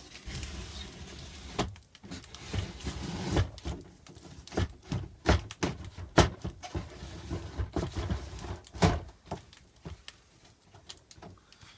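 Rigid aluminum composite panel being slid into the plastic track of a Norcold RV refrigerator door: a scraping slide, then a run of sharp knocks and clicks as the panel is worked into place.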